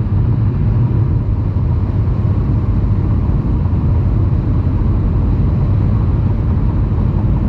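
Road noise inside the cabin of a 2021 Kia Seltos SX Turbo at highway speed: a steady low rumble from the tyres on the road, which the owner finds loud and thinks may partly come from the factory tyres.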